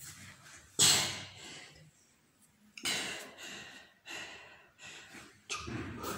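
A man breathing hard and out of breath from exercise: four loud, gasping breaths a second or so apart, the first the loudest.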